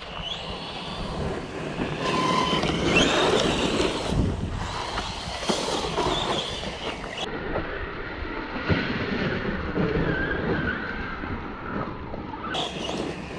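Losi Lasernut U4 RC truck running: its brushless electric motor whines, rising and falling in pitch as it speeds up and slows, over the rough noise of its tyres on the ground.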